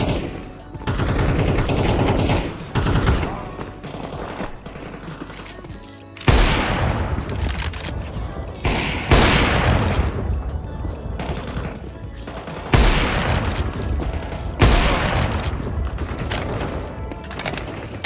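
Repeated loud bursts of gunfire over music, each burst starting suddenly and trailing off over a second or two.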